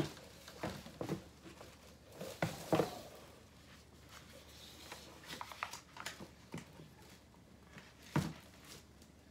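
Scattered handling noises as a wet, painted gallery-wrap canvas is lifted and turned over plastic sheeting: light taps, rustles and knocks, with a sharper knock about eight seconds in.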